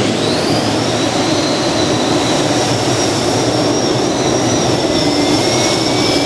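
Two helicopter gas turbines of a modified pulling tractor running at full power while it pulls the brake sled: a loud, steady rush with a high turbine whine that rises right at the start and then holds.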